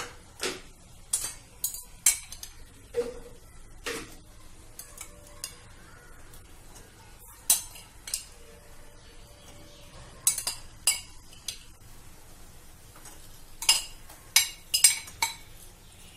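Metal spoon clinking and knocking against a cooking pan in irregular strokes as boiled chickpeas are tipped into the masala and stirred in.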